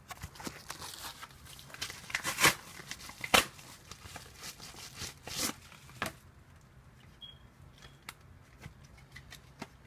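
A paper mailing envelope being torn open, its paper crinkling and rustling, with loud rips about two and a half and three and a half seconds in. After about six seconds the tearing stops and only a few light clicks and taps remain.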